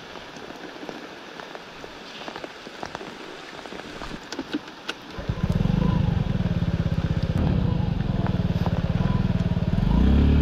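Rain pattering steadily, then about halfway through a 49cc scooter engine starts and idles with a low, even putter. Near the end it revs up as the scooter pulls away.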